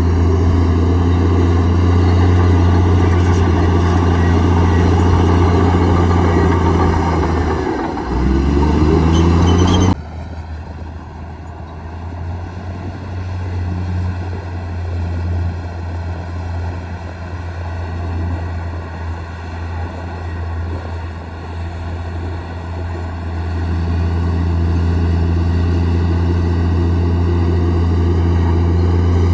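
Komatsu D58E bulldozer's diesel engine running steadily under load. Its note dips and climbs back about eight seconds in. The sound then drops suddenly at about ten seconds and stays quieter until it swells back up near the end.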